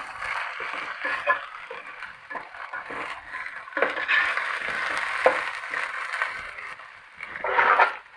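Ginger-garlic paste and browned onions sizzling in hot oil in a pot, with a few knocks of a stirring spoon.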